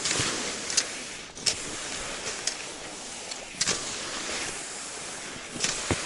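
Skis sliding and crunching over shallow snow, with a sharper swish or crunch at each uneven stride.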